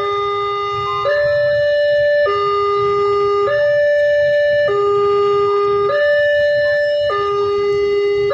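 Railroad level-crossing warning siren sounding a loud electronic two-tone alarm, alternating between a low and a higher note about every 1.2 seconds to signal that a train is approaching and the crossing is closed.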